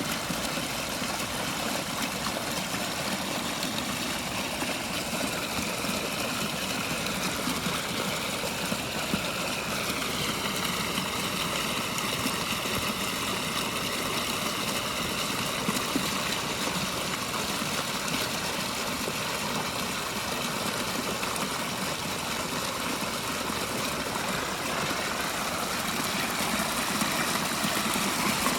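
Pondless waterfall running steadily: water pours and splashes down a stepped rock falls into a rock-filled basin. The stream is strong because expanding foam sealed between the rocks now sends the water over the falls instead of under them.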